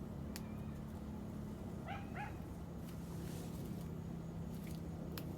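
An animal gives two short, high-pitched calls in quick succession about two seconds in, over a steady low hum.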